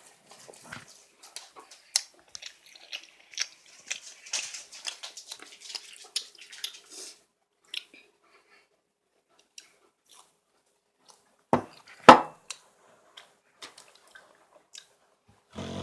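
Close-up mouth sounds of a person eating ramen and sausage: a dense run of small wet chewing clicks for about the first seven seconds, then only sparse ticks. Two sharp knocks come about twelve seconds in.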